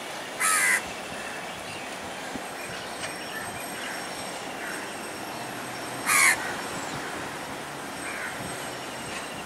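A crow cawing twice, loud and short, about half a second in and again about six seconds in, over the steady low rumble of a train running slowly along the tracks, with faint chirps from other birds.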